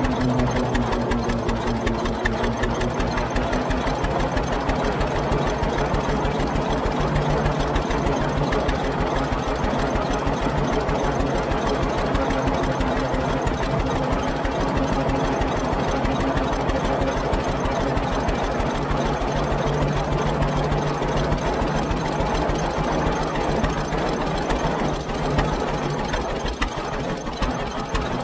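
1922 International 10-20 Titan tractor's two-cylinder kerosene engine running under load as the tractor drives along, with a fast, even stream of exhaust beats.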